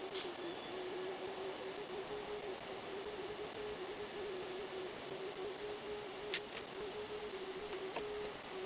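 TIG welding arc from an AHP AlphaTIG 201XD, set to 136 amps with a foot pedal, fusing a steel tophat bung into a gas tank: a steady hiss with a steady, slightly wavering hum, and one short click about six seconds in.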